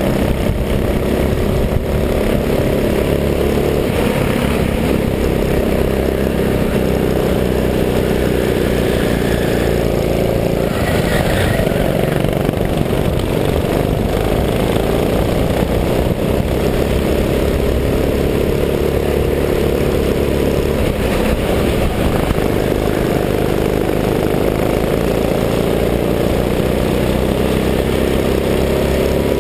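Go-kart engine running hard on track, its note rising and falling as the kart brakes and accelerates through the corners, with a dense rush of wind noise over the helmet-mounted camera.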